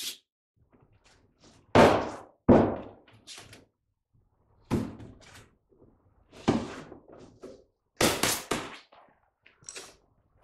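Plastic inner fender liner of a Honda Accord being pushed and knocked back into place behind the front wheel: about six sharp thunks and rattles at irregular intervals, some in quick pairs.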